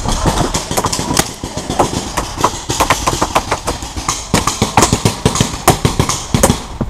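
Paintball markers firing rapid, irregular shots, several a second, over a low rumble.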